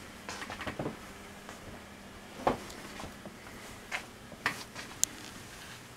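A few soft rustles and light knocks, loudest about two and a half seconds in, with a sharp click about five seconds in: fabric and camera handling as a cat plays with a dangling camera string in a fabric-covered armchair.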